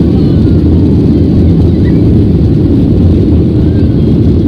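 Steady, loud low rumble of a Boeing 737-800's CFM56-7B engines and airflow, heard inside the passenger cabin behind the wing.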